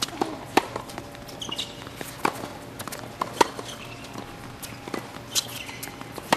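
Tennis rally on a hard court: sharp racket hits and ball bounces, with players' footsteps on the court, over a steady low hum.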